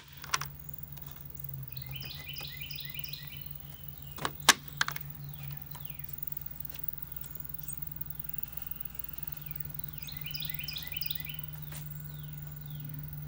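Sharp metallic clicks at the start and a louder cluster about four seconds in, from the barrel-bolt latches on the lattice doors being worked by hand. A bird sings two quick runs of repeated chirps, about two seconds in and again around ten seconds, over a steady low hum.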